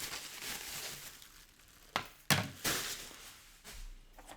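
Handling of foam and plastic model-glider parts: a soft rustle, then three sharp clacks about two seconds in as the pieces knock together.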